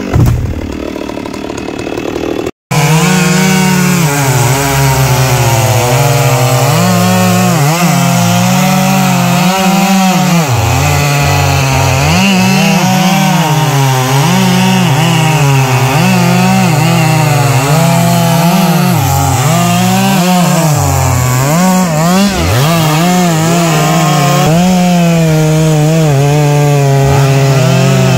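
STIHL petrol chainsaw cutting into a thick tree trunk, its engine pitch rising and falling again and again as the chain bites into the wood and frees up. The sound is quieter for the first couple of seconds and drops out briefly about two and a half seconds in.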